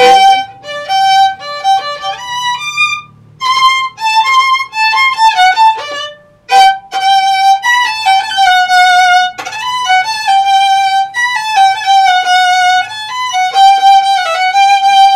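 Solo violin played with a bow: a quick melody of many short notes, breaking off briefly twice, about three and six seconds in.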